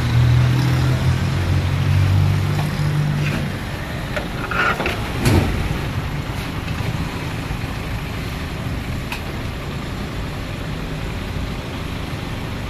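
Steady street background noise with an engine's low hum, which drops away about three and a half seconds in, and one sharp knock a little after five seconds.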